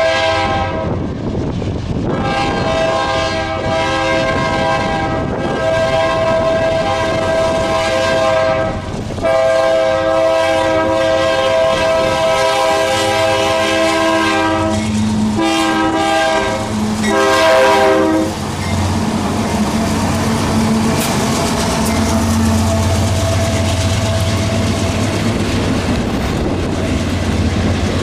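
Ferrosur diesel freight locomotive sounding its multi-chime air horn for a grade crossing, in several blasts with short breaks, the last two shorter, ending about 18 seconds in. After that come the locomotives' engines and the freight cars rumbling and clacking past close by.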